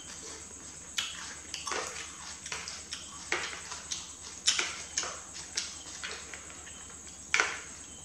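Close-miked eating sounds of instant noodle soup: wet chewing and slurping of noodles in irregular short bursts, the loudest about four and a half and seven seconds in. A steady faint high-pitched whine runs underneath.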